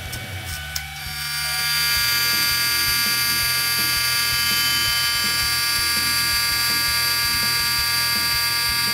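Shielded metal arc (stick) welding on cast iron with a nickel rod: the arc strikes about a second in and then burns steadily with a loud buzzing hiss.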